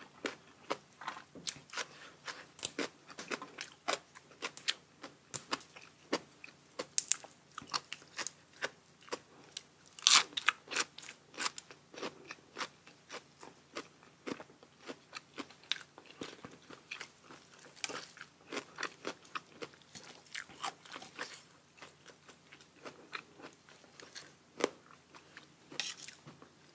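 Close-miked eating of papaya salad: a steady run of crisp crunches and chewing, with a few louder bites about seven and ten seconds in.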